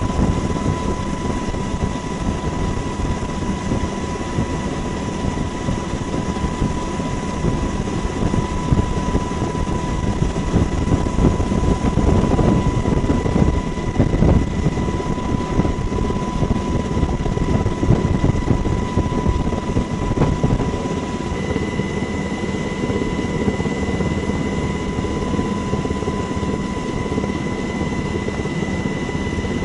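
Steady engine and rotor noise from the aircraft carrying the camera, heard from on board: a low constant rumble with a thin steady whine over it.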